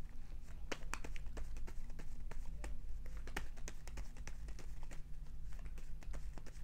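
A tarot deck shuffled by hand: a run of irregular light taps and flicks as the cards slide and strike against each other, over a steady low hum.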